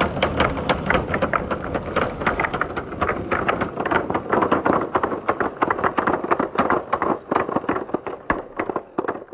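Dozens of hard, translucent balls rolling down a perforated board ramp and clacking against one another as they pile up at the bottom. The rapid, irregular clacks come many to the second.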